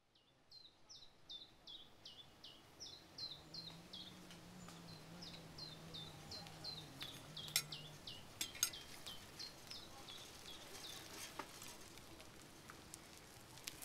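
A small bird calling faintly in a long, even run of short chirps that slide down in pitch, two or three a second, stopping about ten seconds in. A few sharp clicks come near the middle.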